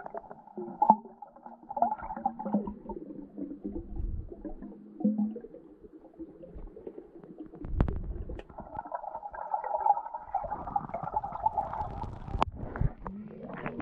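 Muffled underwater sound from a camera held below the surface: bubbling and gurgling water with irregular dull thumps and clicks, including a strong thump about eight seconds in.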